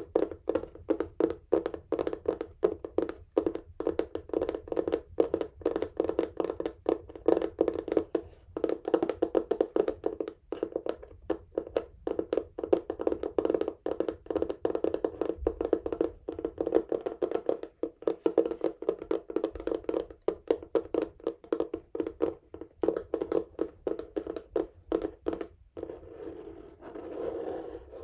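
Fingernails tapping rapidly on a textured cardboard box, with some scratching mixed in. About two seconds before the end the taps stop and a softer, continuous scratching and rubbing on the cardboard takes over.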